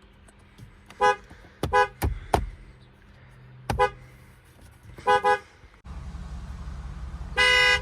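Ford vehicle horn tapped in short beeps: single quick beeps early on, a double beep about five seconds in, and a longer beep near the end, with a couple of sharp clicks around two seconds in.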